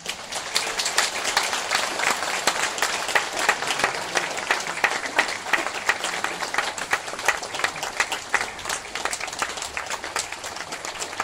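Large audience applauding, the clapping breaking out all at once and continuing densely.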